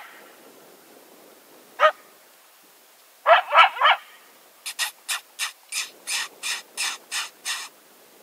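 Coyote barking. A single bark comes about two seconds in and a quick run of three rising bark-yelps a little after three seconds. Then come about ten short, harsh barks, roughly three a second.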